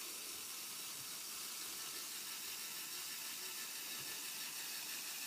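Small Lego Power Functions electric motor switched on and running steadily, a whir as it drives the truck's winch to reel in its string.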